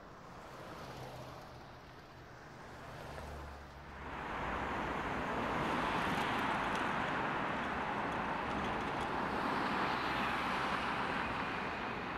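City street traffic noise: a steady rush of vehicles on the road below. It comes in about four seconds in, after a faint low rumble.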